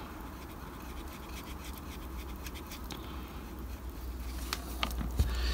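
A paintbrush's bristles scrubbing paint into the embossed brick plasticard of a model chimney stack: a faint, steady scratching with a few light ticks near the end.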